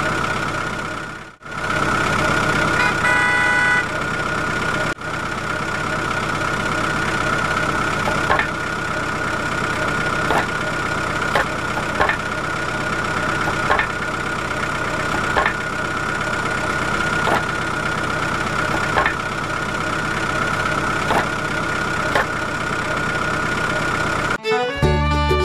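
Tractor engine sound idling steadily, with a high whine on top and short clicks every second or two. It cuts out briefly twice early on, and music comes in about a second before the end.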